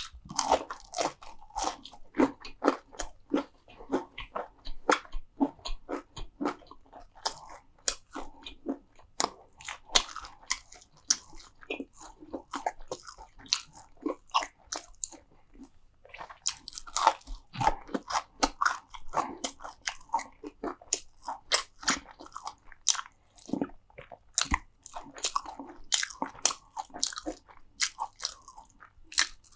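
Close-miked crunchy eating: repeated bites and steady chewing of crisp food, with dense, irregular crackles and crunches and wet mouth sounds between them.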